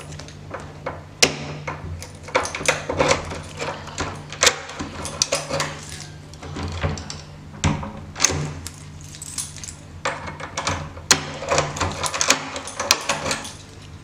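Irregular clicks, knocks and rattles of close handling while a hand plays with a cat and a wand toy, over a steady low hum.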